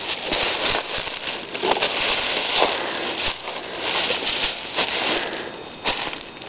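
Footsteps crunching through dry leaf litter and twigs: an uneven run of crackles and snaps over a steady rustle.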